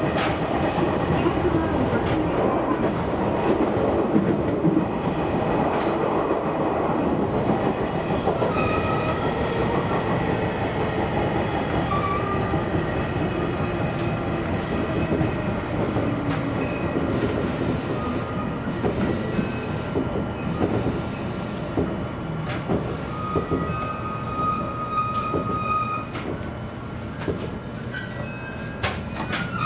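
JR Kyushu 813 series electric train heard from its cab, running and then slowing to a stop at a station. The wheels clatter over the rails, a motor whine falls in pitch as it brakes, and thin high squealing tones come in near the end.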